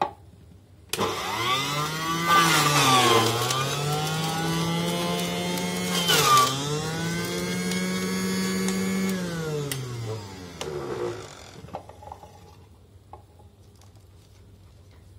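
Electric centrifugal juicer motor switched on, spinning up with a rising whine, its pitch dipping twice under load as the pusher forces vegetables into the spinning blade. About nine seconds in it is switched off and winds down, the pitch falling away.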